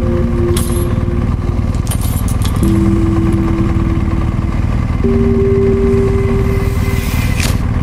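Motorcycle on the move: a steady low rumble of engine and wind, with a few brief whooshes. Over it plays background music of slow held chords that change about every two and a half seconds.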